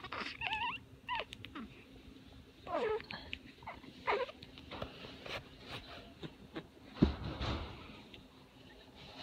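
Infant making short squeaky coos and grunts, several small sounds that slide up and down in pitch. About seven seconds in there is one loud low thump of handling noise.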